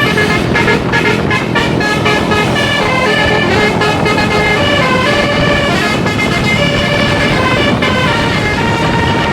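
A bus's Basuri telolet multi-tone air horn playing a tune: several horn notes sounding together and stepping from pitch to pitch, over road and engine noise.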